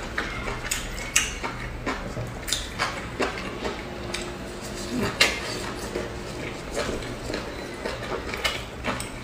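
Close-miked eating of boiled dumplings by hand: wet chewing and mouth smacks, heard as irregular sharp clicks, over a faint steady low hum.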